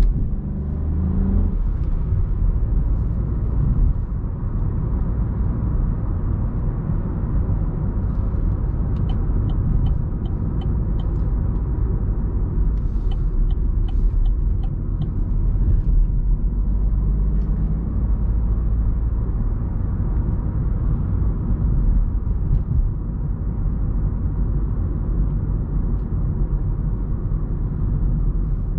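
Steady engine and road rumble of a 2020 Opel Astra with its 1.2-litre turbo petrol engine, driven through town. A run of light, evenly spaced clicks sounds about nine seconds in, and another about thirteen seconds in.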